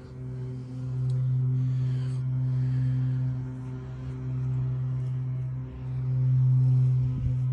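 Background music: a steady low droning tone with a few higher overtones, swelling and easing every couple of seconds.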